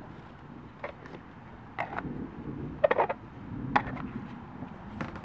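About five sharp knocks and clicks from someone moving about and handling things in a fibreglass sailboat's cockpit, the loudest a quick double knock about three seconds in, over a low steady rumble.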